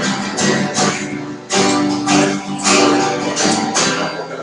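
Instrumental music: an acoustic guitar strumming chords in a steady rhythm.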